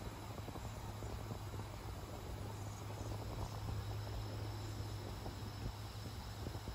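Water spraying from a vintage Nelson Dial-A-Rain oscillating lawn sprinkler, a steady hiss and patter of jets falling on grass, under a steady low hum and a faint steady high-pitched tone.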